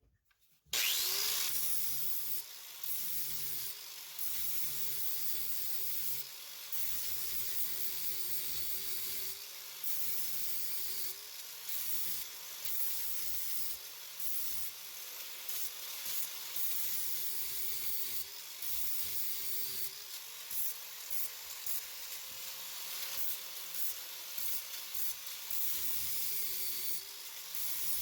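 Power grinder grinding down a weld on a steel mower-deck gauge wheel arm. It starts about a second in, and the motor's whine sags and recovers as the disc is pressed on and eased off, with brief drops in level.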